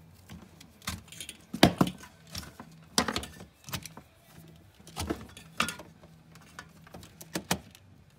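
Irregular clicks, knocks and rattles of plugs, cords and a plastic power strip being handled and taken off the wall, the loudest knocks a little under two seconds in and at about three seconds.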